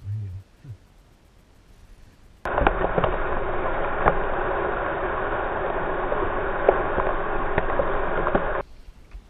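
Motorboat running fast through choppy water: a dense rush of spray, wind and engine noise with sharp slaps of water against the hull, starting suddenly about two and a half seconds in and cutting off suddenly near the end. A short low rumble comes at the very start.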